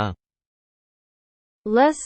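Speech ends just after the start, followed by about a second and a half of complete silence, and then speech resumes near the end.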